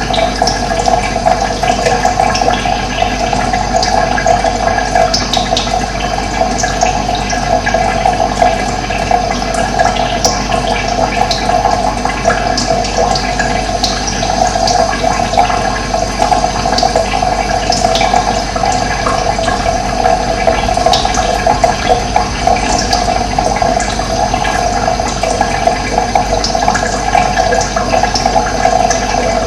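Running water flowing steadily, with short, high bird chirps scattered through it.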